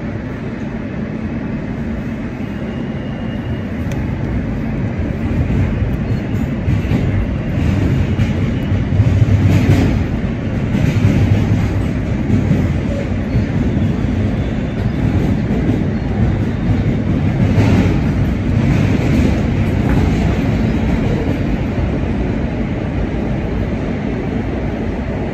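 R160 subway train heard from inside the car as it pulls out of a station and speeds up into the tunnel. The rumble of wheels on rail grows louder over about the first ten seconds, with a few brief rattles, then runs steadily at speed.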